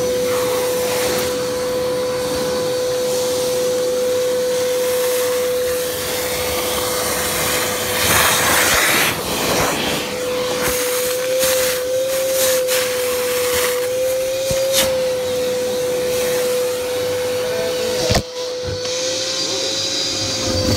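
Craftsman shop vac running with a steady motor whine and rush of air as it sucks up a spilled mess. The rush swells louder about eight to ten seconds in, a few clicks of debris come up the hose after that, and there is a sharp knock about eighteen seconds in.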